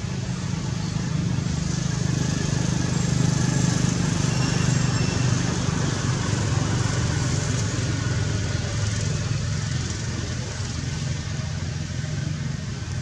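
A motor vehicle's engine droning steadily, growing louder a few seconds in and then slowly easing off.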